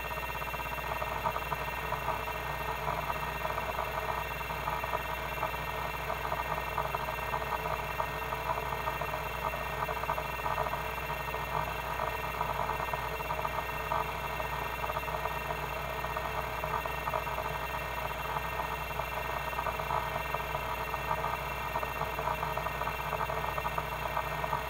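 Seagate ST-251 5.25-inch MFM hard drive working under a benchmark: its stepper-motor head actuator steps rapidly and without pause, a dense buzzing chatter over the steady whine of the spinning platters. The chatter stops abruptly at the very end, leaving only the spindle whine.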